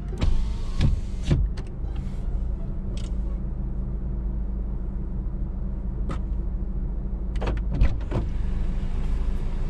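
Steady low hum of a Honda sedan running while parked, heard from inside the cabin, with a few short clicks and knocks near the start and again near the end.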